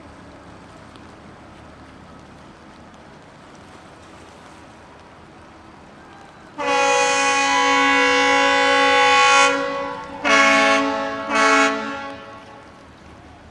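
Ship's horn captain's salute of one long, two short from the tug Clyde S. VanEnkevort: a loud three-second blast, then two short blasts from a second horn of a different tone.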